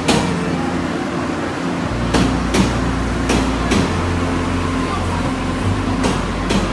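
TRA Taroko Express (TEMU1000) electric multiple unit rolling slowly past along a station platform: a steady low hum with pairs of sharp wheel clacks over rail joints, two pairs two to four seconds in and another near the end.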